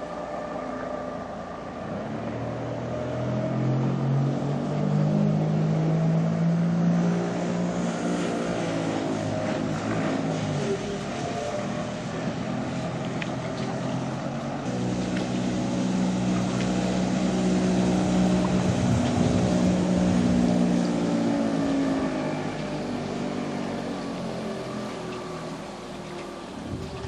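Motorboat engine running. It grows louder twice, each time its pitch climbing and then sinking as it revs or passes by.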